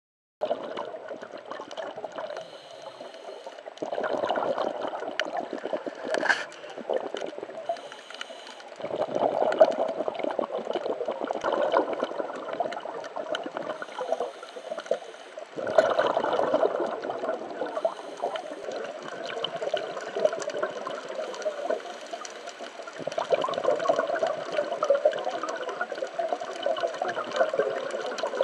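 Scuba diver's regulator breathing heard underwater through the camera housing: exhaled bubbles come in surges a few seconds long, with quieter stretches between them.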